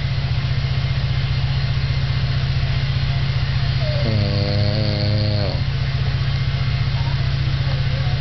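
A man snoring: one drawn-out, wavering, pitched snore about four seconds in, lasting about a second and a half, over a loud, steady, low pulsing drone.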